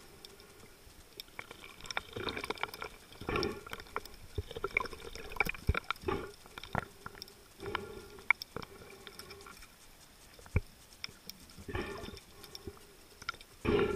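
Water sloshing and gurgling around a snorkeling spearfisher's camera at the surface, in irregular short bursts, with scattered sharp clicks and knocks.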